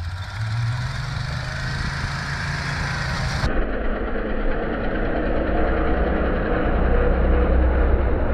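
Pickup truck's engine running under throttle as it drives through snow, getting louder as it comes closer, with a deep low throb strongest near the end. The sound changes abruptly about three and a half seconds in.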